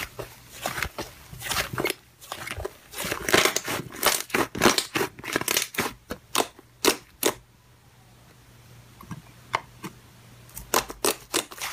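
Thick slime being squeezed, pulled and poked by hand, giving quick sticky crackling pops and clicks. The pops thin out for a moment past the middle, then pick up again near the end.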